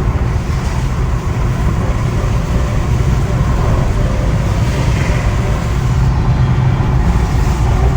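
Mahindra Thar driving, a steady low rumble of engine and road noise without a clear engine note.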